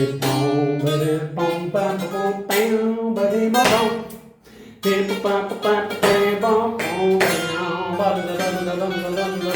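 Guitar playing a melody of plucked notes on a single string, built from the notes of a B-flat seventh chord, with a short pause about four seconds in.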